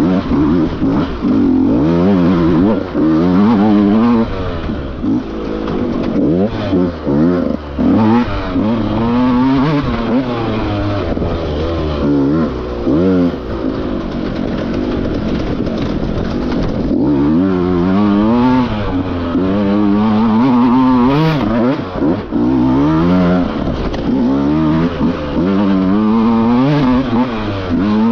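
Dirt bike engine revving up and down over and over as the rider works the throttle on a technical woods trail, with brief throttle cuts between bursts.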